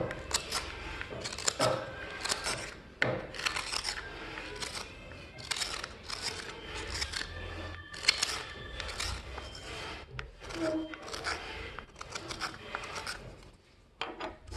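Spoon knife blade being worked against a spinning buffing wheel: repeated rasping strokes over the steady low hum of the machine, easing off briefly near the end.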